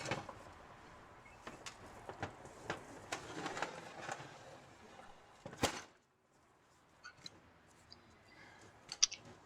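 Faint scattered clicks, taps and scraping of small metal parts and tools being handled during transmission reassembly, with one sharper click a little past halfway.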